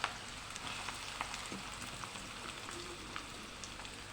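Thinly sliced onions frying in hot mustard oil, a steady sizzle with scattered crackles, the first stage of browning them into beresta (crisp fried onions).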